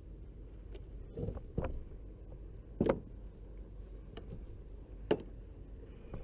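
A few sharp knocks and clunks on a plastic fishing kayak as the rod in its mounted holder and the angler's body shift against the hull, the loudest about three seconds in, with small ticks between, over a steady low rumble.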